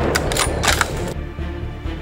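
Background music under the fading echo of a gunshot, with a quick cluster of sharp clicks in the first second.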